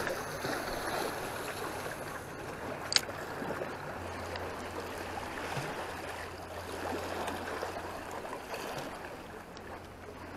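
Sea water sloshing and lapping against the concrete blocks of a breakwater. A single sharp click about three seconds in, and a low steady hum joins about four seconds in.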